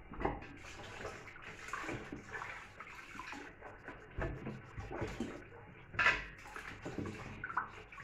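Water splashing and sloshing as pieces of sheep meat are rinsed by hand in a large stainless steel pot, in irregular bursts, with a louder splash about six seconds in.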